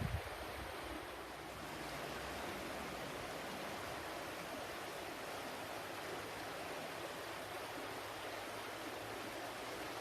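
Flowing water rushing steadily, with one short low thump right at the start.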